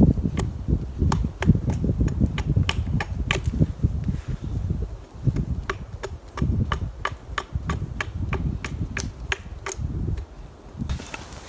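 Wood being chopped with a blade: repeated sharp, irregular knocks, two or three a second, over a low rumble.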